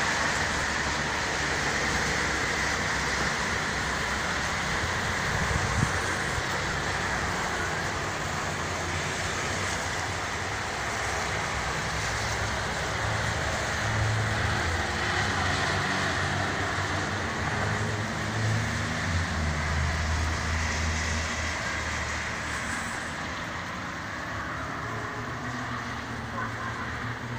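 Steady distant road traffic noise: a constant hiss with a low engine hum that swells and fades.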